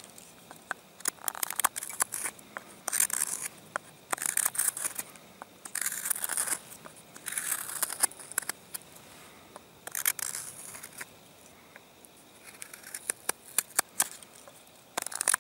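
A freshly sharpened Frost (Mora) 162 hook knife carving shavings out of the hollow of a wooden block. It makes repeated short slicing cuts, roughly one every second or so, and each cut is a brief rasping hiss.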